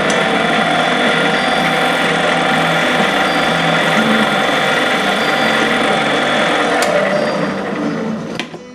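Small benchtop metal lathe running, its chuck spinning steadily while it turns a small aluminum post. Its steady whine and gear noise drop away near the end as the lathe is switched off.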